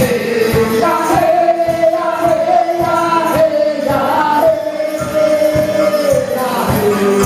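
Live acoustic band of mandolin, acoustic guitars and fiddle playing a song, with long held melody notes over a steady beat of about two strokes a second.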